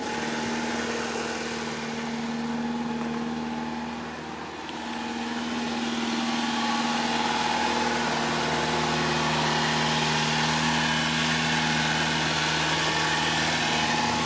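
1990 Subaru Sambar kei truck's rear-mounted four-cylinder engine idling steadily, heard from outside the truck and briefly fainter about four seconds in.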